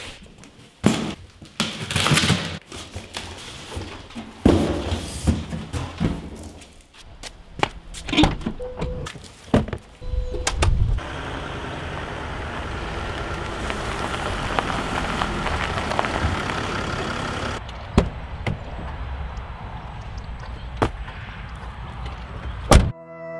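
A run of vehicle and door sounds: knocks and thunks, a car pulling away, then a Mercedes van on a gravel track with a steady rumble for several seconds, and a sharp door thunk just before the end, where music starts.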